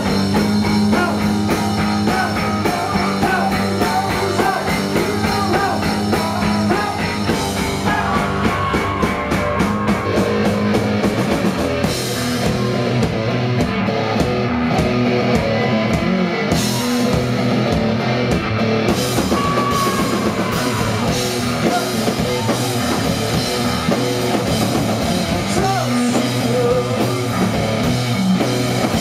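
Live rock band playing: a man sings lead over a hollow-body electric guitar, bass guitar and drum kit.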